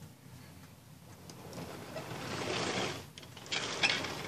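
Hand-held camera handling noise: a soft rustling that swells in the middle, then a few sharp clicks near the end.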